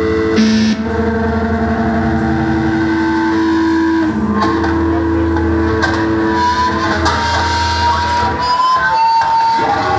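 Amplified electric guitars playing live, holding long droning notes that change pitch every few seconds over a steady low hum. Near the end the low notes drop away and a high, wavering tone comes in.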